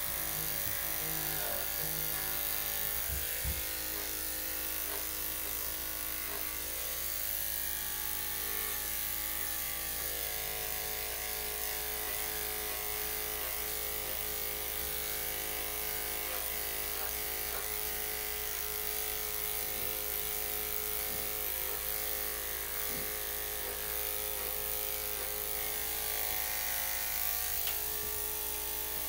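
Electric dog grooming clippers with a #5 blade running with a steady hum.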